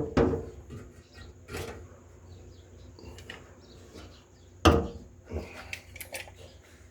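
A few sharp knocks and clicks from handling the silicone caulk and working against the fountain basin while sealing it, the loudest about two-thirds of the way through, with quiet stretches between.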